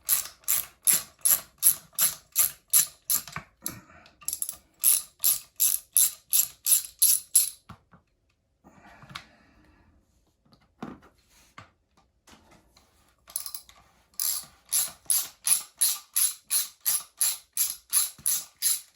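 Hand ratchet wrench clicking in quick, even strokes, about three clicks a second, while bolts are loosened and backed out. It runs in three bursts, with a pause in the middle that holds a few quieter handling noises and a single knock.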